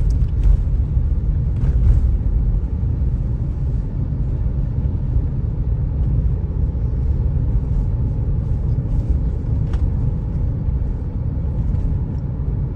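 Steady low rumble of a car driving, heard from inside the cabin, with a few faint knocks and rattles.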